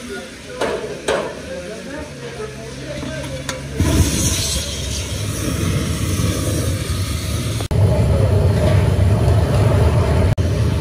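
Burner in a stove's firebox, fed by a hose, flaring up about four seconds in with a sudden steady roar and a brief hiss, after two sharp knocks; the roar then carries on loud and low.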